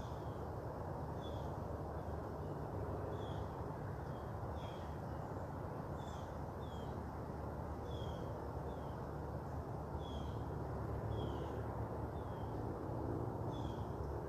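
A bird repeating short, high, down-slurred chirps about once a second, over a steady low background rumble.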